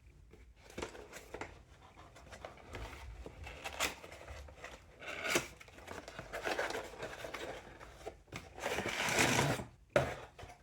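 Packaging being handled: irregular rustling and scraping, with a longer, louder rustle near the end and then a sharp click.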